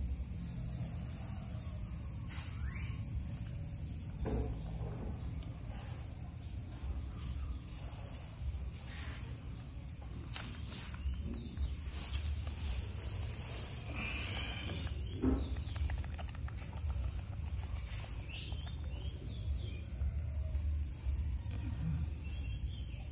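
A cricket trilling, one steady high note that breaks off for about a second a few times, over a constant low rumble.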